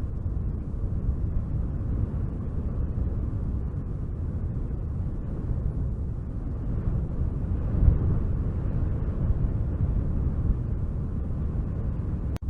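Wind blowing in a steady low rumble that swells and eases, with a stronger gust about eight seconds in.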